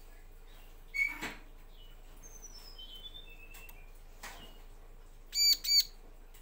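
Bar-winged prinia (ciblek) calling: a couple of sharp ticks about a second in, then a run of short high chirps stepping down in pitch, and two loud, ringing call notes in quick succession near the end.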